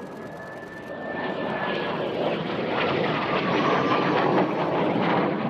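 Kawasaki T-4 jet trainer flying past with smoke on, its twin turbofans swelling to a loud rushing roar about three to four seconds in. A thin whine drops in pitch as it goes by.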